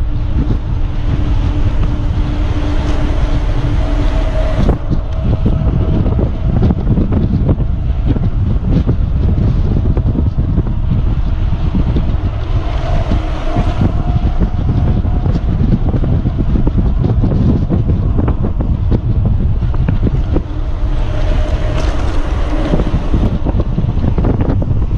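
Strong wind buffeting on the microphone of a mountain bike descending a paved road at speed, steady throughout, with a faint hum that shifts in pitch now and then.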